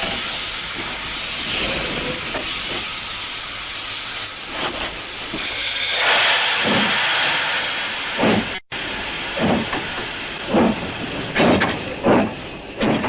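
A JNR Class 9600 steam locomotive standing and hissing steam steadily, the hiss swelling louder about six seconds in. In the second half, short irregular crunching steps of someone walking through snow come over the hiss.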